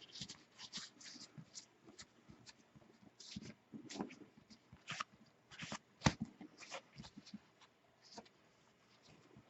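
Alcohol cleaning pad wiping over a phone's glass screen: irregular short scuffs and handling clicks, with one sharper knock about six seconds in.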